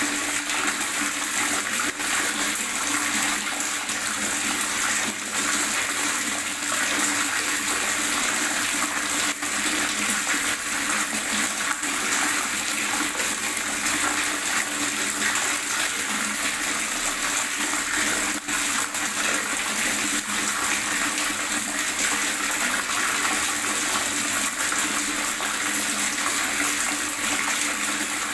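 Water gurgling steadily, a continuous splashing hiss that does not change.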